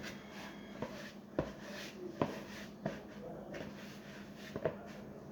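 Hands kneading a soft dough, rubbing and pressing with several dull thumps at uneven intervals as the dough is pushed and turned.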